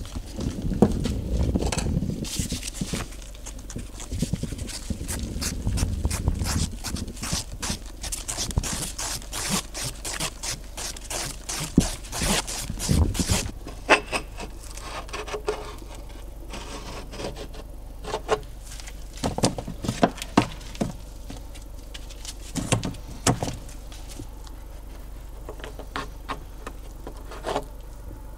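Thick polybond bonding putty being worked by hand: a stick and putty knife scrape, squish and tap as it is mixed on cardboard, then smeared and pressed along a seam, in many irregular strokes, busiest in the first few seconds.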